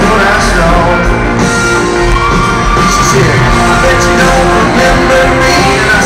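Loud live concert music: a singer performing over amplified band music, heard from the crowd in a large arena hall.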